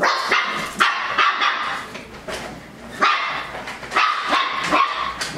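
Five-week-old F1 Sheepadoodle puppies yipping and barking, a string of short, sharp puppy barks coming one after another.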